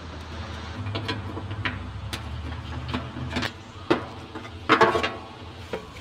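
Nut driver clicking as screws are backed out, then metallic knocks as the sheet-metal service panel comes off a Goodman condensing unit. A low steady hum lies under the first half and fades about three and a half seconds in.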